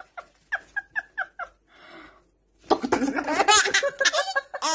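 A baby laughing: a few short giggles, then a longer run of laughter starting about two and a half seconds in.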